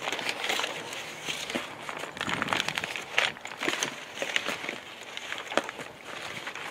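Brown kraft packing paper crinkling and rustling as hands dig through a cardboard box to unpack it, in irregular runs of sharp crackles.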